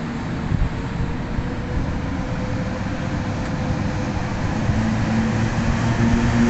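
Electric locomotive hauling a passenger train as it sets off and draws closer, its steady hum and running noise growing louder over the last couple of seconds. A short knock sounds about half a second in.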